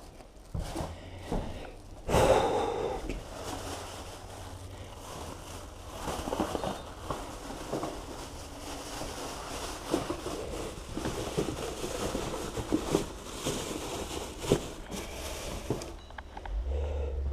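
A man breathing heavily, with scattered knocks and rustling of handling things, and a louder burst about two seconds in.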